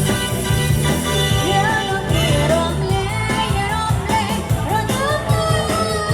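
Live band playing a Khmer twist song with a steady bass and drum beat, a singer's voice coming in over it about a second and a half in.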